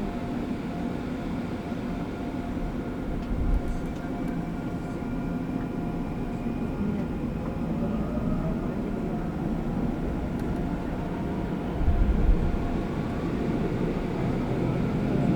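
Seoul subway Line 2 train running between stations, heard from inside the car: a steady rumble of wheels on rails with a faint whine from the motors. A tone glides upward about seven seconds in, and the low rumble swells briefly about twelve seconds in.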